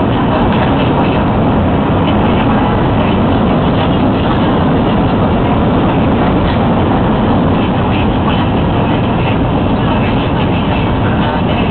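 Airliner cabin noise in flight: the steady rush of engines and airflow heard from inside the fuselage.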